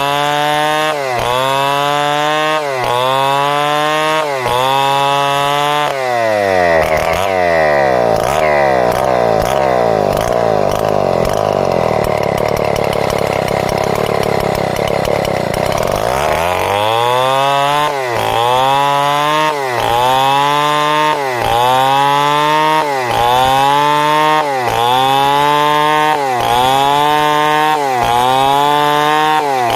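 A two-stroke chainsaw cutting lengthwise through a log to saw it into boards. The engine's pitch dips and recovers in a rhythm a little faster than once a second. About six seconds in, its speed sinks slowly for several seconds under the load of the cut, then climbs back up and the rhythm resumes.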